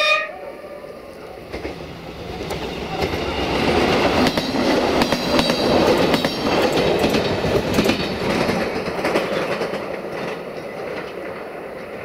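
A two-car Wadloper diesel multiple unit passing close by, its horn cutting off right at the start. The running noise of engine and wheels swells, with quick clicks of wheels over rail joints through the middle, then fades as the train pulls away.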